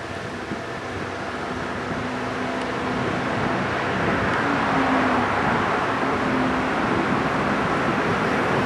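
SM42 diesel-electric shunting locomotive running as it approaches hauling a freight train, its diesel engine and the rolling of the train on the rails growing louder and staying loud over the second half.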